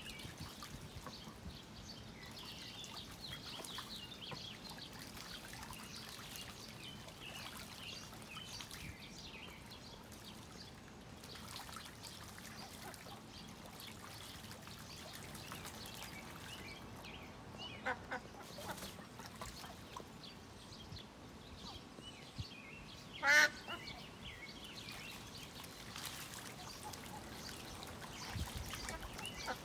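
Pekin and Mallard ducks bathing in a stock tank of water, with steady light splashing and dribbling. A few short duck calls come about two-thirds of the way through, followed by one loud quacking call.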